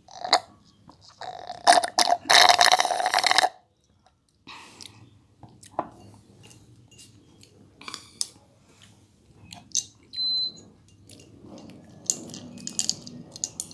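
Close-miked drinking of juice from a glass: a quick gulp, then about two seconds of loud mouth and slurping noise. After that, scattered small clicks and taps of the glass and a plastic straw being handled, with a short high squeak about ten seconds in.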